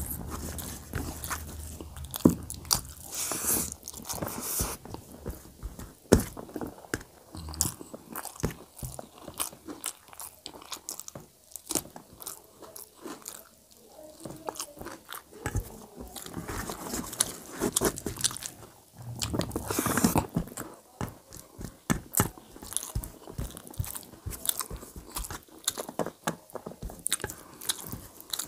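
Close-up chewing and smacking of a person eating rice and dum aloo by hand: many short, irregular wet clicks, now and then louder, mixed with fingers working the rice on a steel plate.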